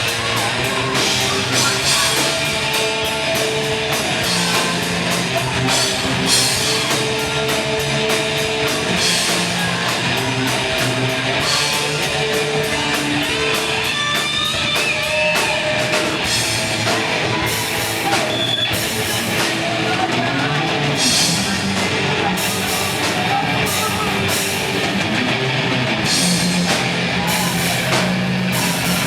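Heavy metal band playing: distorted electric guitars over a drum kit.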